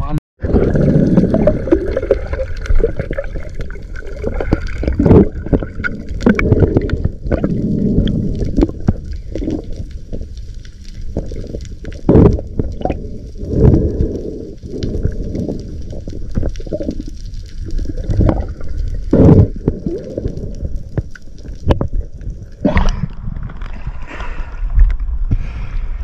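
Muffled underwater sound of water rushing and gurgling against a submerged camera, in uneven deep surges with several louder bursts. About 23 seconds in, the camera breaks the surface and the sound turns brighter, with sea water splashing.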